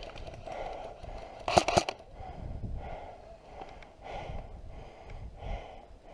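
Heavy breathing and movement noise from a player close to the camera, in soft repeated pulses, with a quick run of sharp clicks about a second and a half in.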